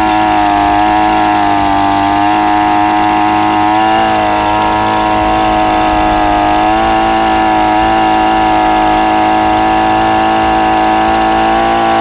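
Small two-stroke engine of a knapsack power spray pump running at a steady speed, the pitch wavering only slightly, as water sprays over the machine. It keeps running while doused, which shows the engine is sealed against water.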